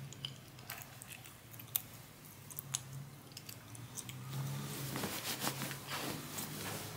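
Soft rustling and crinkling of cloth being handled and arranged, with scattered small clicks, busier in the second half.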